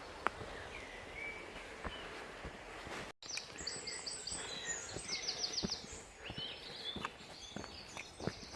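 Footsteps on a woodland track with small birds singing; a short break about three seconds in, after which high, rapid bird trills and repeated notes come in.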